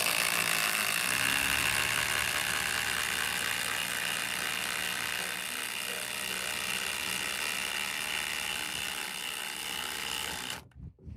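Cordless impact drivers, a Milwaukee M12 Gen 3 and a DeWalt DCF809 Atomic, hammering as they drive 3/8 by 6 inch lag screws: a continuous rapid impacting rattle that runs steadily for about ten and a half seconds, then cuts off suddenly.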